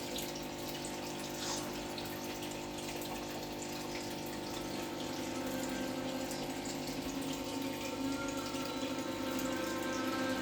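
Aquarium filter running: water flows steadily under a constant pump hum.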